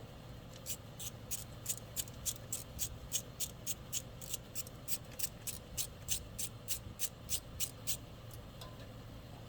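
Ratchet wrench clicking as a 10mm bracket bolt is unscrewed: a steady run of sharp, even clicks, about four a second, that stops about eight seconds in.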